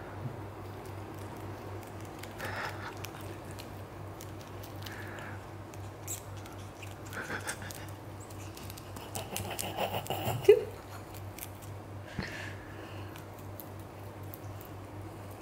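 A rabbit nibbling and chewing leafy greens, with faint crisp crunching clicks and soft rustling of the leaves, over a low steady hum. A brief louder sound comes about ten and a half seconds in.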